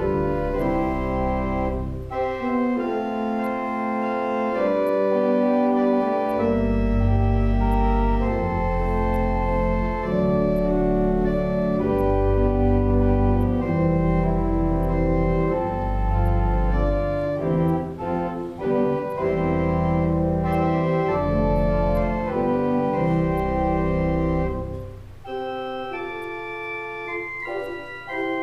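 Organ playing a slow prelude of held chords. Deep pedal bass notes come in about six seconds in and drop out near the end, where the music gets quieter.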